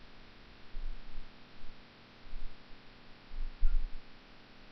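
Steady faint hiss and hum of the recording's background noise, broken by a few brief low rumbles.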